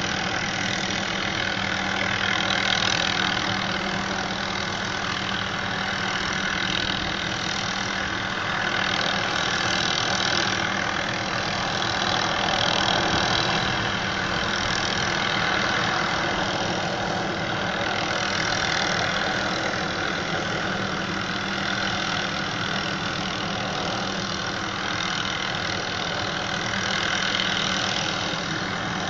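Helicopter hovering, its rotor and engine making a steady drone with gentle swells in loudness every few seconds.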